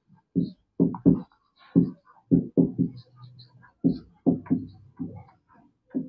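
Marker writing on a whiteboard: a run of short, separate stroke sounds, two or three a second, as the letters are written out.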